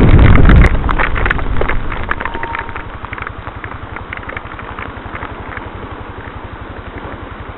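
Loud rushing wind and rain on the microphone cuts off under a second in as the motorcycle stops, leaving the Yamaha Crosser 150's single-cylinder four-stroke engine idling with an even, low pulsing beat, with scattered faint ticks over it.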